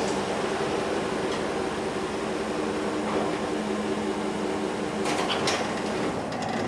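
An electric motor running steadily with a hum of several held tones, which stops near the end.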